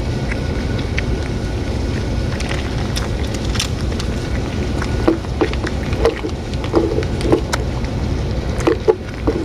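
Two cats eating wet cat food from a metal dish close to the microphone: short wet chewing and smacking sounds, coming in quick clusters from about five seconds in, over a steady low background rumble.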